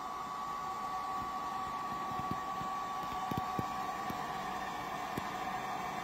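Oil filling machine running: a steady machine whine with two held tones over a hiss of fan-like noise, with a few faint clicks about halfway through and again near the end.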